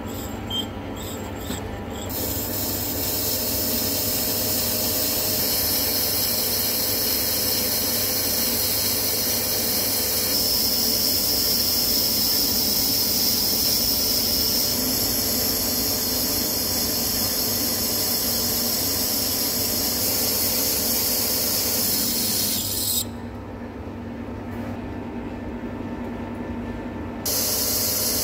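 Hafco centre lathe turning a high-tensile steel bar, the carbide tool cutting steadily with a high, squealing hiss as the chips peel off. The sound shifts abruptly a few times, and the high hiss drops away for a few seconds near the end.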